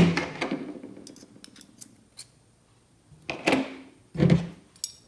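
Small metal fuel-pump parts being handled and set down on a concrete floor: a few light clicks, then two louder metallic clacks a little past three seconds in and again about a second later.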